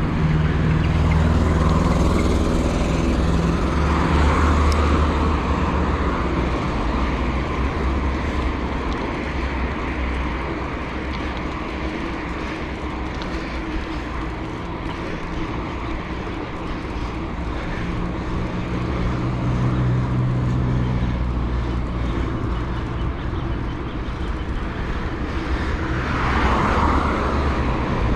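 Road traffic on a city street: cars and heavier vehicles passing with engine hum over a steady low rumble.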